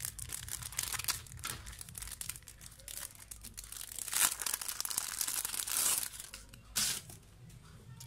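Thin clear plastic wrapping crinkling and crackling as it is pulled off a small ruler calculator, with louder crackles about four and six seconds in; it quietens near the end.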